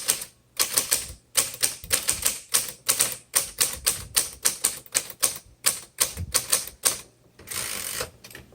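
1953 Royal Quiet Deluxe manual typewriter being typed on: a quick run of sharp keystroke clacks, about four a second, with a longer rasping sound of about half a second near the end.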